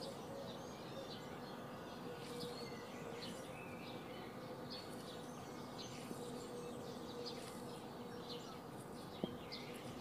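Small birds chirping over and over, with a faint steady buzz underneath.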